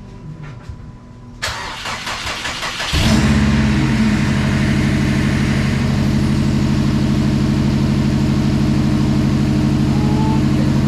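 A 2014 Subaru WRX STI's turbocharged flat-four engine cranking on the starter for about a second and a half. It catches about three seconds in with a brief flare, then idles steadily.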